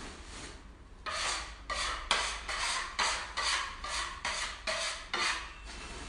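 A hand scraper rasping across a floor in quick, repeated strokes, about two to three a second. The strokes start about a second in and stop shortly before the end.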